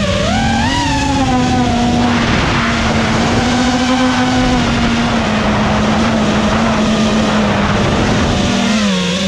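FPV quadcopter's brushless motors and propellers whining, heard through the drone's onboard camera. The pitch wavers up and down with throttle over a rush of wind noise, and dips then climbs again near the end.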